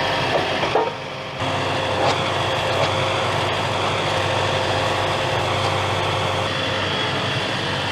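John Deere tractor engine running steadily, with a brief dip in level about a second in.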